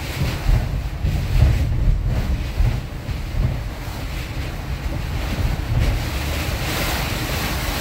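Storm heard from inside a moving van on the highway: heavy rain and road spray rushing steadily over the windshield and body, with strong wind buffeting in a low rumble. The hiss swells near the end.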